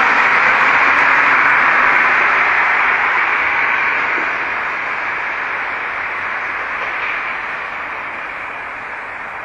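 Steady rushing noise of road traffic that slowly fades away over the second half.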